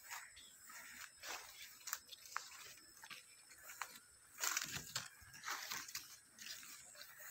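Leaves and grass rustling and crackling as someone walks and pushes through a dense poplar plantation, in irregular short bursts, loudest about two thirds of the way in.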